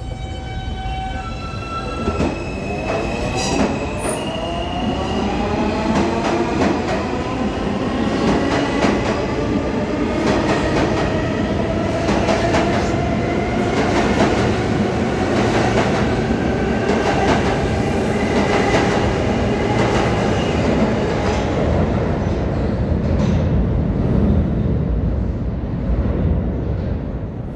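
Alstom R160A-2 subway train departing from the station. Its propulsion gives a few stepped rising tones at first, then a whine that climbs in pitch as it speeds up. Steady rumble and wheel-on-rail clicking follow as the cars pass, thinning out near the end.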